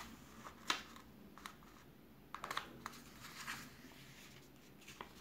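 A sheet of paper being handled and folded on a tabletop: scattered short, crisp rustles and taps as fingers press and smooth the creases, with a cluster of them about halfway through and a sharper one at the very end.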